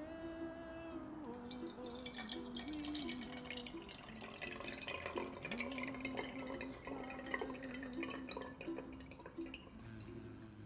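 Water poured in a thin stream from a ceramic jug into an empty aluminium drink can, trickling and splashing inside it. The pouring starts about a second in and fades near the end, over soft background music.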